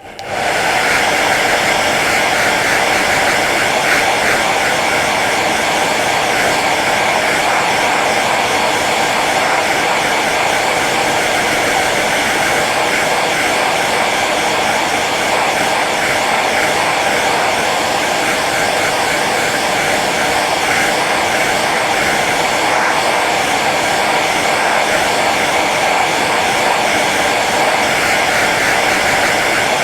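Hair dryer running steadily on its low setting, a constant blowing hum that comes up within the first half second.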